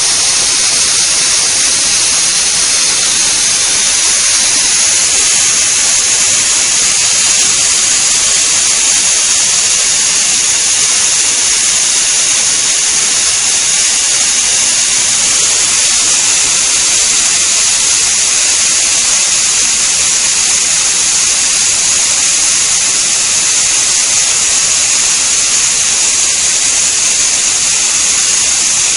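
Pressure cooker whistle venting steam in a loud, steady, high-pitched hiss.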